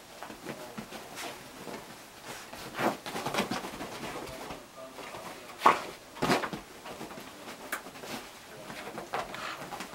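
A whippet rolling and scrambling on a bed: irregular rustling of the duvet and bedding with soft thumps, the loudest a little over halfway through.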